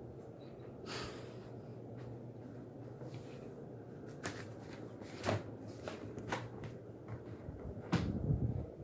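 52-inch Hunter Oakhurst ceiling fan running with a steady low hum, with several sharp clicks along the way and a louder low thump near the end.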